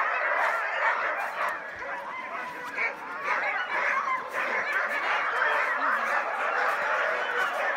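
Many sled dogs barking and yelping at once in a dense, unbroken chorus, the excited noise of dog teams held in the start area.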